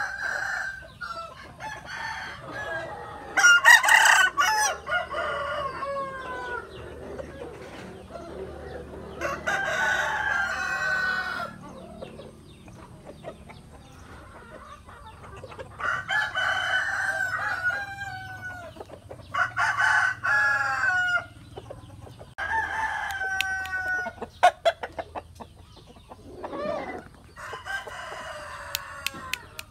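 Roosters crowing, one long crow after another every few seconds, about six in all, with hens clucking in between.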